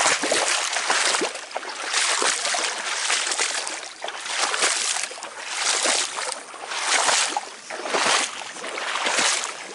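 Footsteps wading through shallow floodwater and wet grass, a splashing swish with each stride, about one step a second.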